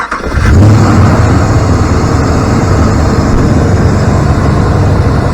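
A 2014 Ram 2500's 5.7 L Hemi V8 starts up and runs steadily, its first start after new lifters and a new camshaft. It catches within the first half second.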